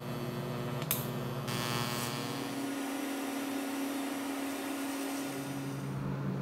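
TIG welder arc buzzing steadily as silicon bronze filler rod is laid onto the cracked thermostat-housing bolt boss of a cast-iron cylinder head, with a sharp click about a second in. The buzz changes tone between about three and five seconds in.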